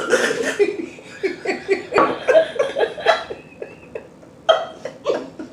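Women laughing and giggling in short bursts, with a few sharp clicks among them.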